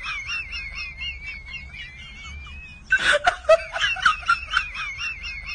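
An added comic sound effect: a high, warbling whistle-like tone with snickering laughter, which starts over about three seconds in.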